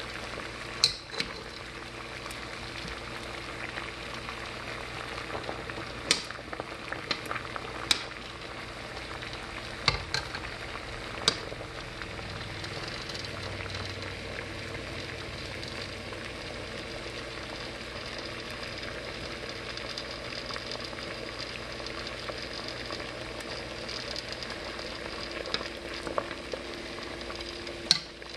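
Water at a rolling boil in a large pot, a steady bubbling hiss, with a few sharp clicks of wire tongs against the pot.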